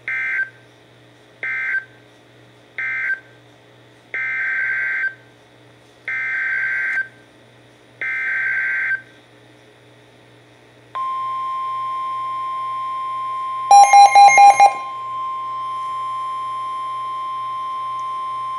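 Emergency Alert System SAME data bursts: three short end-of-message bursts, then three longer header bursts about two seconds apart that open the next warning. These are followed by the steady 1050 Hz weather radio warning alarm tone, with a brief cluster of rapid beeps about three seconds into the tone.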